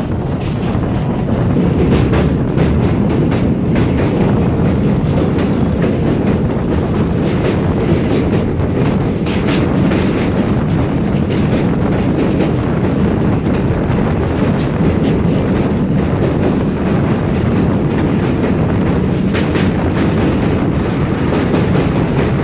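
Alaska Railroad train running over a river bridge, heard from on board: a loud steady rumble of steel wheels on the rails with scattered clicks.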